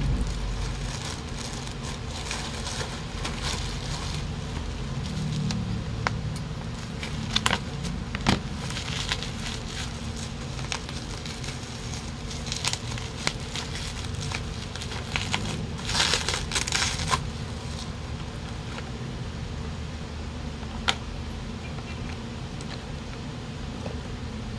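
Plastic packaging being handled and unwrapped: a plastic bag and a bubble-wrap wrapper crinkling and crackling in short irregular bursts, the longest about two-thirds of the way through, over a steady low background rumble.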